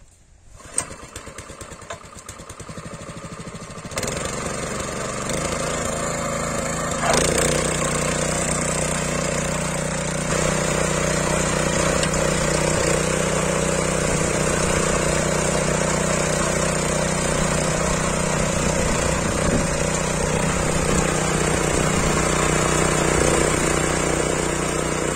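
KishonKraft KK-IC-200P 5 HP four-stroke petrol power weeder engine starting up and running. Its sound grows over the first few seconds and steps up about four seconds in. After a loud knock about seven seconds in it runs steadily and louder at working speed.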